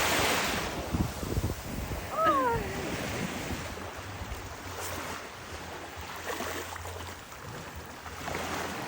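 Ocean surf washing onto the shore, loudest at the start and slowly easing. About two seconds in there is one short call that falls in pitch.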